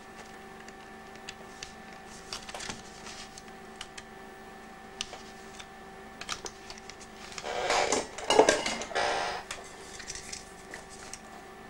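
Small plastic clicks and handling noise from a portable cassette player's case and circuit board being fitted together by hand, with a louder stretch of rubbing and scraping about eight seconds in.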